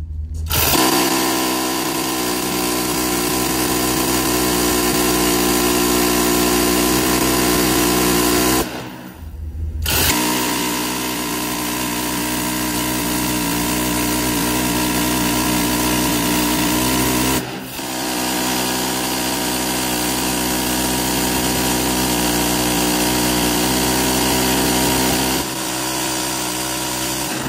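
M134 Minigun, an electrically driven six-barrel rotary machine gun, firing in long continuous bursts at about 50 rounds a second. There are three bursts of roughly eight seconds each, with a break of about a second after the first and a brief dip after the second.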